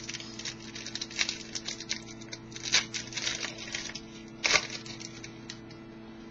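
Trading cards being handled: crinkly rustling and quick clicks of card stock and wrapper, with two sharper snaps near the middle and about three-quarters through, over a steady electrical hum.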